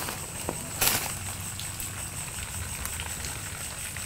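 Footsteps crunching and rustling through plastic litter and debris, with scattered small crackles and one louder crunch about a second in. A faint steady high whine runs underneath.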